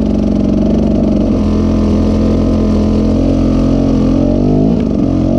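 KTM EXC 300's single-cylinder two-stroke engine idling steadily, with a quick rise and fall in revs near the end as the throttle is blipped.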